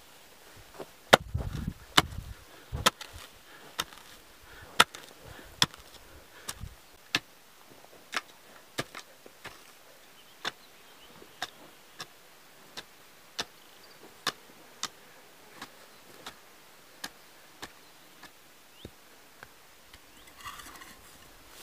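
Hand hoe chopping into soil over and over, about one and a half strokes a second. The first few blows are the heaviest, then the strokes go on lighter.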